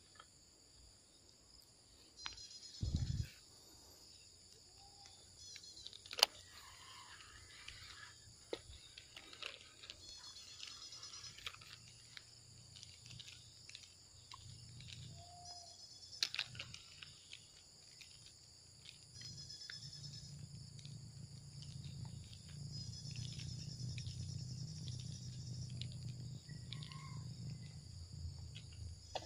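Faint pond-side ambience of insects calling steadily in a high pitch, with a thump about three seconds in, a sharp click about six seconds in, scattered small ticks, and a low rumble building from about twenty seconds on.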